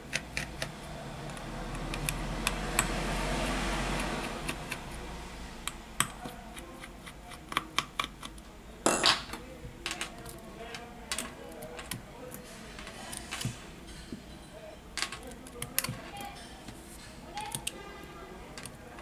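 Small, sharp metallic clicks and taps of a precision screwdriver and tweezers on a smartphone's metal midframe and its tiny screws, with a louder click about nine seconds in. A low rushing noise swells and fades over the first few seconds.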